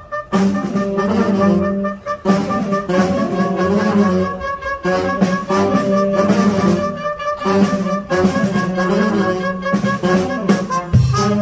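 A saxophone ensemble of several saxophones playing together in sustained phrases, with short breaks between phrases every two to three seconds.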